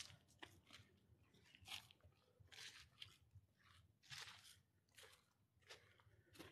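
Faint footsteps crunching through dry leaf litter, one step about every half second to a second.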